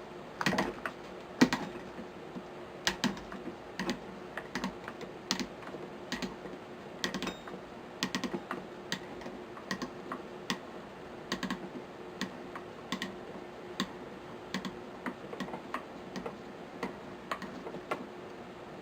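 Light metallic clicks and taps, irregular, about one or two a second, from a screwdriver working out the trigger assembly screws of a Savage Model 64 rifle and the small parts being handled.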